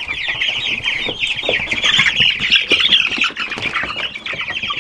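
A brooder full of young meat-bird chicks peeping nonstop, many high cheeps overlapping into one continuous chorus.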